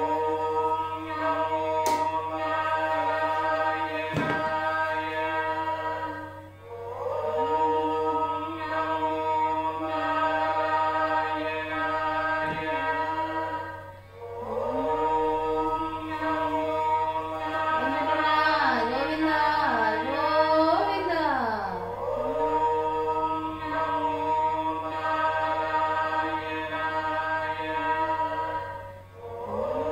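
Devotional music in Carnatic style: a melody of long held notes with ornamented pitch slides, in phrases of about seven seconds separated by short breaks.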